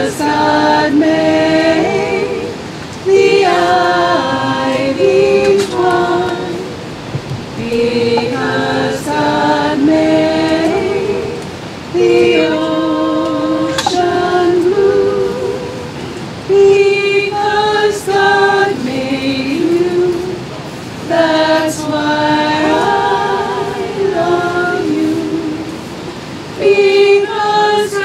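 A small family group of women's and men's voices singing unaccompanied, in sung phrases of a few seconds with short pauses between them.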